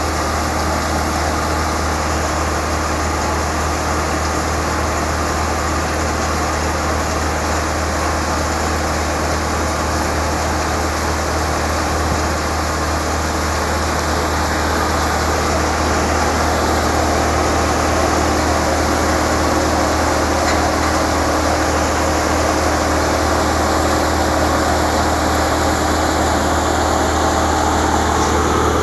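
Tractor-driven New Malwa thresher running while threshing pearl millet (bajra) heads: the tractor engine and thresher drum make a loud, steady mechanical drone that gets a little louder from about halfway.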